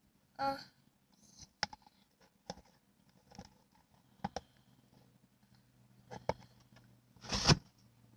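Homemade clear-glue and detergent slime being squeezed and stretched by hand. It gives short sticky clicks and crackles at irregular moments, with a longer, louder crackle near the end.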